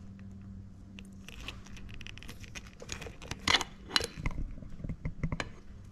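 Small clicks, scrapes and rattles of a motorcycle's stock ignition switch and its key being handled and worked loose from the headlamp bracket, with two sharper clicks a little past halfway.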